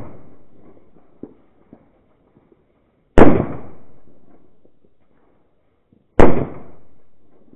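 Firecrackers going off: two sharp, loud bangs about three seconds apart, each echoing away for over a second, with the echo of an earlier bang fading at the start.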